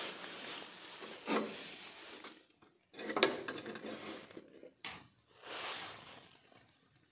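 Hinged wire grill baskets holding fish being turned over on a charcoal grill: metal rattling and scraping against the grill frame in three separate bursts, with a sharp knock about three seconds in.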